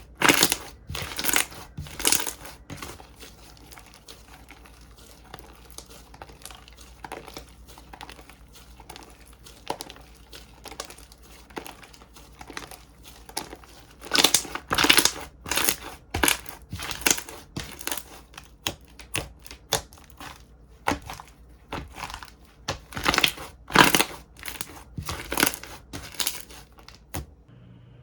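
Slime being squeezed and worked by hand, giving irregular crackling, crunching and popping bursts, loudest in clusters near the start, in the middle and toward the end, then stopping abruptly.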